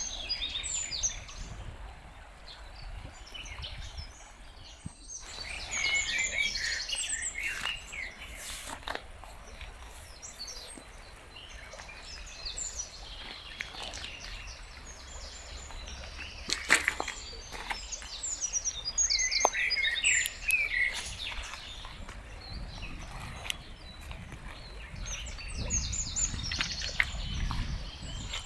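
Several songbirds chirping and singing in overlapping short phrases, over a low steady rumble, with a few sharp clicks.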